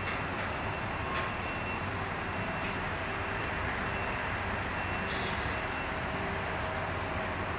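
End-cab diesel switcher locomotive running steadily as it creeps along the track pulling a covered hopper. A thin high-pitched tone comes and goes over the engine, with a few faint clicks.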